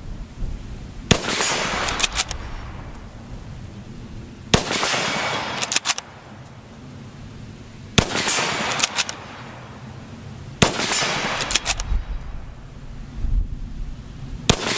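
Lee-Enfield No. 4 rifle in .303 British fired four times, a few seconds apart, each shot echoing away. Between the shots come lighter metallic clicks as the bolt is worked to chamber the next round.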